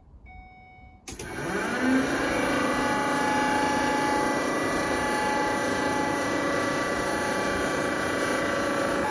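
Shuttle bus ceiling air-conditioning unit's fan motor switching on about a second in, spinning up over about a second, then running steady with a whine over a rushing noise. It is really loud; the owner believes the motor's bearings are bad.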